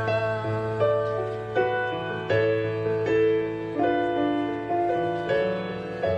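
Slow instrumental accompaniment with piano chords struck about once a second over a held low note, an instrumental passage between the sung lines of a solo song.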